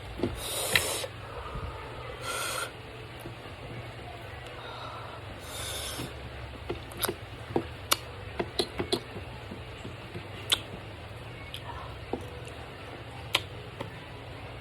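Close-up eating sounds: short hissing bursts in the first few seconds, then a run of scattered mouth clicks and smacks from chewing, over a steady low hum.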